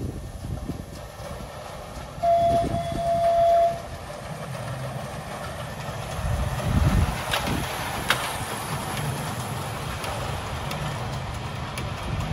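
Ride-on miniature railway train, a small diesel-style locomotive hauling passenger cars, sounds one steady horn note for about a second and a half, then rumbles past with its wheels clicking on the track.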